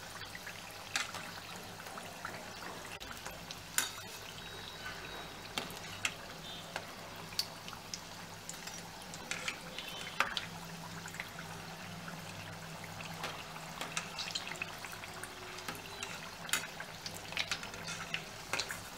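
Samosas deep-frying in hot oil in a steel kadhai on medium flame: a steady crackling sizzle with scattered sharp pops and clicks, over a low steady hum.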